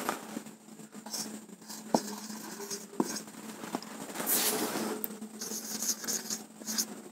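Marker pen writing on a whiteboard: short scratchy strokes with a longer one about four seconds in and a few sharp taps of the tip against the board.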